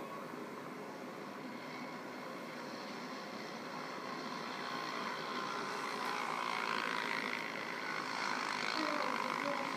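Polaris RZR side-by-side engines running hard as the machines race up a sand dune, heard as a steady, rough engine noise that grows louder through the second half.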